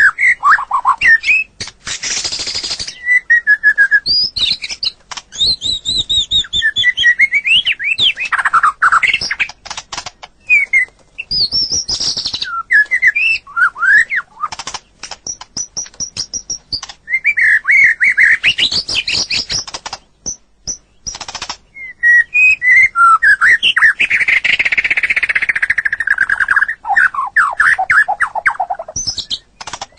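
White-rumped shama (murai batu) singing a long, varied song: loud whistles and fast up-and-down sweeping notes mixed with rapid harsh rattling notes, with only brief pauses.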